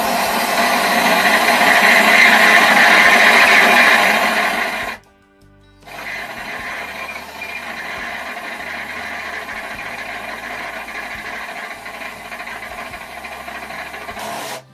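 Corded electric drill running as it drills into the frame: a loud run of about five seconds, a pause of about a second, then a quieter run of about eight seconds that stops near the end.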